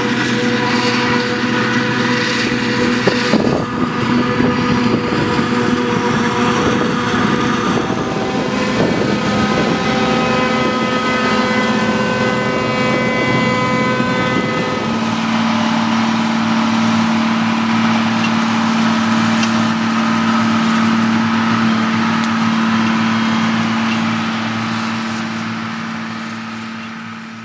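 John Deere 6850 self-propelled forage harvester running, a steady loud machine drone and whine. The sound changes about halfway through to a single steadier hum, then fades out at the end.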